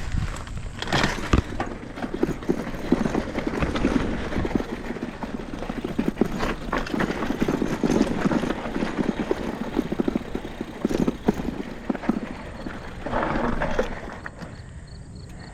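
Mountain bike rolling fast down a rough downhill trail: a steady run of rattling, knocking and clattering from the bike and its tyres going over rocks and gravel. It eases off about a second and a half before the end.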